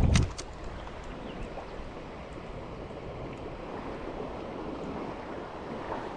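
Steady wind noise on the microphone with lake water lapping, after a short loud knock and rattle of clicks right at the start.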